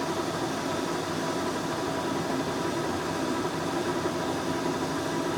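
American Style F heavy-duty engine lathe running under power, a steady, even machine noise with faint held tones.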